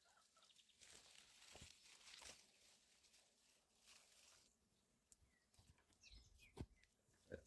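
Near silence with faint rustling, then two light clicks near the end.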